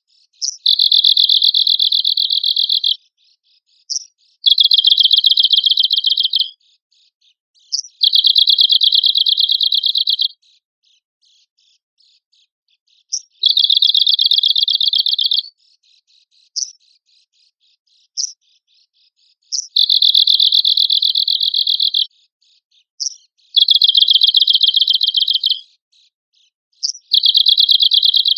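Arctic warbler singing: seven dry, rapid trills of about two seconds each, a few seconds apart, each introduced by a short sharp call note.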